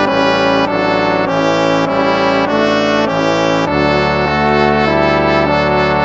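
Instrumental hymn music: a slow phrase of held chords, changing every half second or so.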